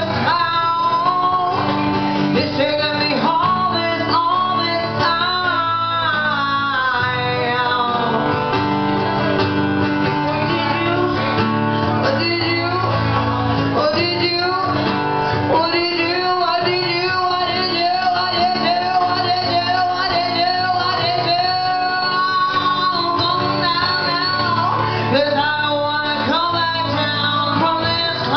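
Live band music: bass and guitars playing steadily, with a gliding lead melody line over them.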